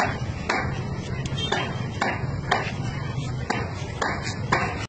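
Hand claps keeping a steady beat of about two a second, a little uneven near the end, over a low murmur of background voices.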